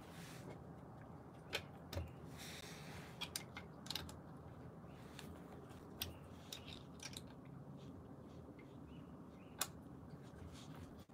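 Faint, scattered clicks and light metal clinks of a hand tool turning screws by hand on an electric unicycle, with a brief soft rustle between two and three seconds in and the sharpest click near the end.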